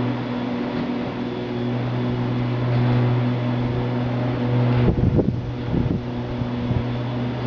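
A steady low mechanical hum, like a motor running, with several overtones held level. About five seconds in, a few brief low bumps and rumbles break it.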